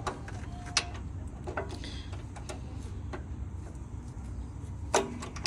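A few sharp, irregularly spaced clicks and clinks of a wrench working the ground cable off a truck battery's terminal, over a steady low rumble.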